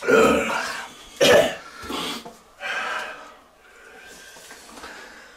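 A man coughing and clearing his throat a few times in the first three seconds, then breathing more quietly, his throat burning from a very hot sauce.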